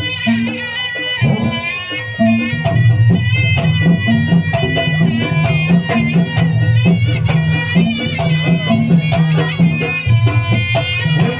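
Live East Javanese traditional music for a Kucingan dance: a wailing reed-pipe melody that slides and wavers in pitch, over repeated low drum and gong strokes with sharp hand-drum hits.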